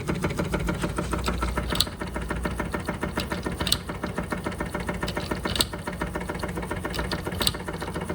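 Doll 387/3 toy steam engine running steadily at speed under load, driving a Fleischmann blacksmith toy: a fast, even mechanical clatter. A brief sharp tick sounds about every two seconds.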